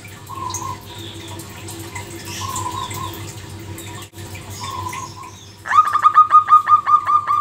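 Zebra dove cooing: a few soft coos, then near the end a loud quick run of short staccato notes, about six a second, in the species' rattling song.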